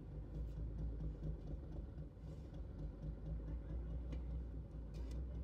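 Steady low rumble, with a few faint, brief scrapes of a shovel digging into pine shavings.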